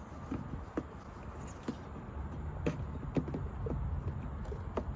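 Scattered light clicks and knocks of plastic automotive parts being handled and pushed into place on a car's front end, irregular and a few per second at most.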